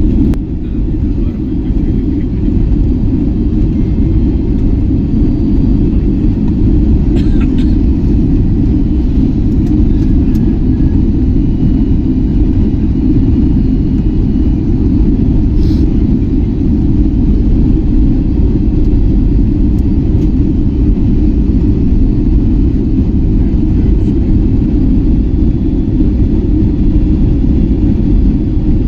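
Steady low rumble of cabin noise inside an Airbus A320neo, with a faint steady hum and a few light clicks.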